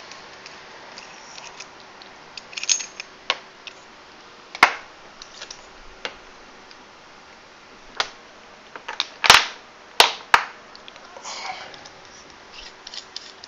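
Stainless steel parts of a Congestus V2 tube mod and a battery being handled and set down on a tabletop: a string of sharp metallic clicks and knocks, the loudest ones about nine to ten seconds in.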